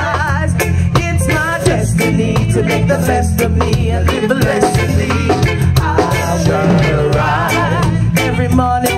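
Live reggae band playing, with several vocalists singing together over a heavy bass line and drum beat; the voices carry a wide vibrato.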